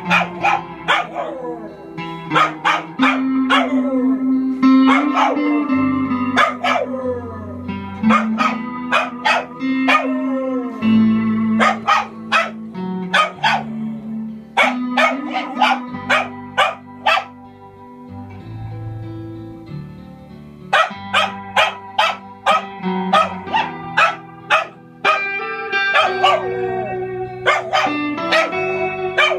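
Small dog barking and yipping in time with music, some barks trailing off into falling, howl-like glides over sustained low notes.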